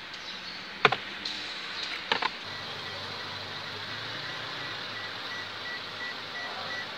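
Sharp clicks of hands handling parts at a bare steering-wheel hub, one about a second in and a quick double about two seconds in, then a steady low hum.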